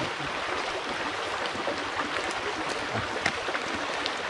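Stream water babbling steadily over rocks, with a few light clicks and one sharper tick about three seconds in.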